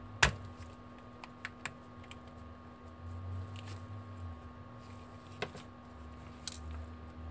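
Sharp plastic clicks as a plastic pry tool works around the plastic housing of an LG GU230 phone, popping its clips: one loud click a quarter second in, a few smaller ones over the next two seconds, and two more near the end.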